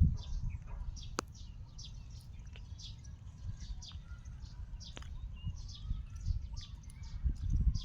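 A bird chirping over and over in short high notes that fall in pitch, one or two a second, over low rumbling noise that swells near the end, with a couple of sharp clicks.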